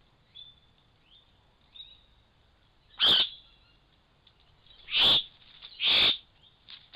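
Bird calling: three loud, short, harsh calls about three, five and six seconds in, with a few faint chirps in between.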